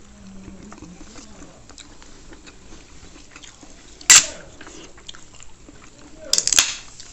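Aluminium soda can opened by its pull tab: a sharp crack and fizzing hiss about four seconds in, then a second, longer burst of cracks and hiss near the end. Faint small clicks underneath.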